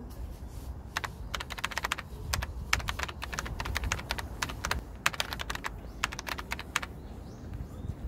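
Computer keyboard typing: quick, irregular key clicks in bursts, starting about a second in and stopping near the end, over a low steady rumble.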